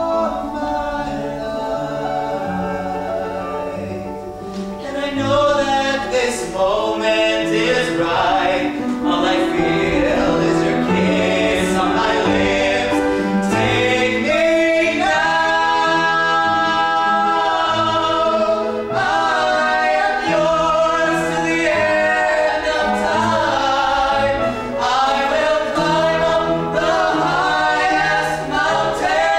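A song from a stage musical: several voices singing long, held notes in harmony over accompaniment. It gets louder about five seconds in.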